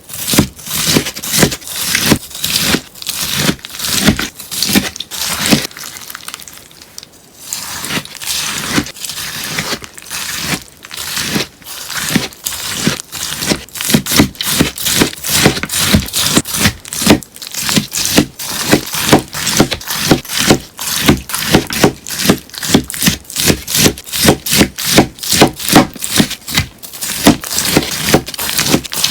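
Scissors snipping through a sponge: a long run of crisp, quick cuts, a few a second, with a short quieter lull about seven seconds in.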